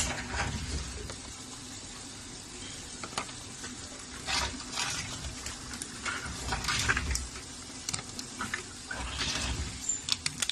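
Deposit-return (reverse vending) machine taking in returnable bottles and cans: bursts of rattling and clattering every couple of seconds as each container is fed in and carried off, each with a low rumble, over a faint steady hum.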